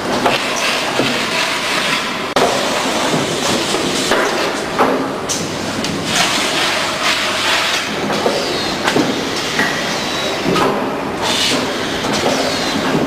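Continuous mechanical clatter with repeated knocks and a few short, high metallic squeaks, like workshop or machinery noise.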